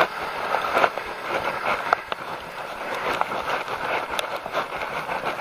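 Bicycle rolling on an asphalt road, with tyre and wind noise buffeting the microphone and scattered small clicks and rattles from the bike.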